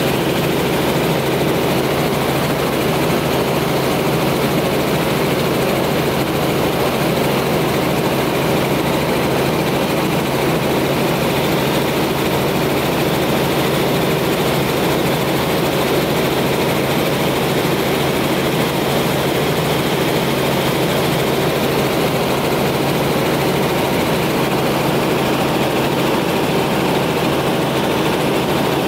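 Helicopter in steady flight heard from inside the cabin: a loud, constant drone of engine and rotor with a steady low hum, unchanging throughout.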